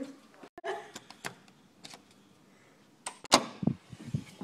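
A wooden door with a lever handle being worked open, giving a string of sharp clicks and knocks from the handle, latch and door, the loudest a little over three seconds in.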